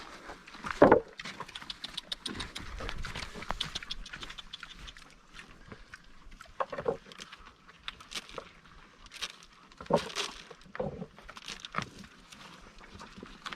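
Pigs grunting a few short times over a busy patter of small clicks and rustles, the loudest grunt about a second in.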